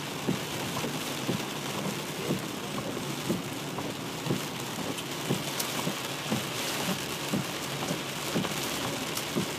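Heavy rain falling on a car, a steady hiss, with a soft knock repeating about once a second.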